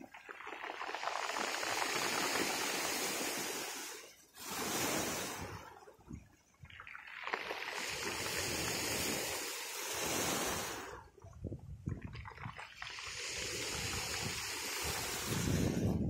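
Sea waves breaking and washing up the shore in repeated surges, each a few seconds long, with brief lulls between them.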